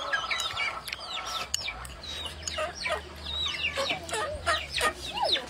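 Several chickens clucking and calling, short calls overlapping several times a second, most falling in pitch.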